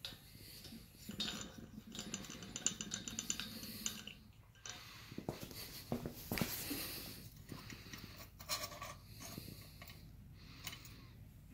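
Faint handling noise of propane-burner gear: light metal clinks, scrapes and knocks, with a run of quick rattling ticks between about one and four seconds in.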